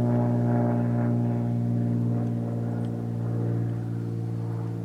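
Propeller airplane flying over, a steady low droning hum that holds one pitch and gets slightly quieter toward the end.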